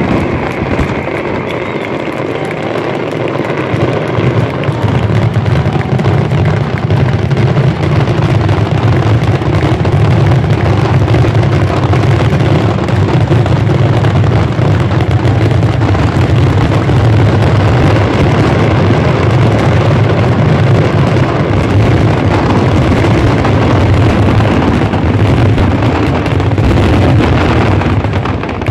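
Fireworks finale: a dense barrage of aerial shell bursts running together into one loud, continuous low rumble, which drops off near the end.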